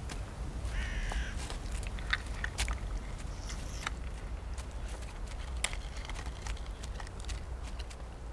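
Outdoor pond ambience: many small sharp clicks and ticks over a steady low rumble, with one short harsh call about a second in.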